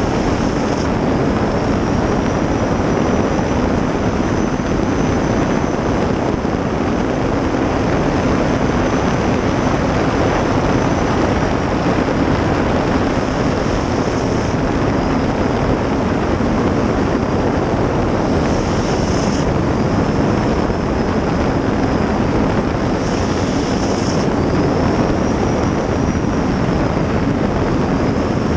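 Gas turbine of a 2000-plus horsepower 23-foot river racing jet boat running at speed: a loud, steady rush of turbine, water and wind noise, with a faint high whine that rises and falls slightly.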